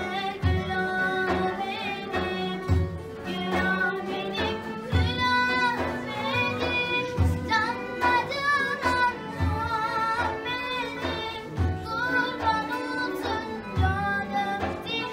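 A song: a singing voice carrying a wavering, ornamented melody over instrumental accompaniment, with a low beat recurring about every two seconds.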